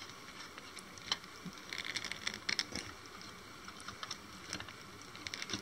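Faint clicks and rustling as the plastic alternate head of a PlayArts Kai Darkseid action figure is worked onto its neck. The clicks come in a busy cluster about two to three seconds in.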